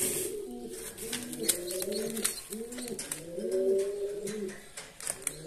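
Domestic pigeons cooing in a loft: a run of repeated rising-and-falling coos, with a few faint clicks.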